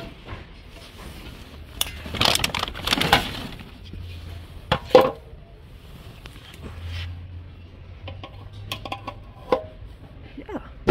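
Hands handling a ribbed plastic hose and a blue plastic hose fitting: rustling and scraping, a sharp plastic knock about five seconds in, then a string of light clicks.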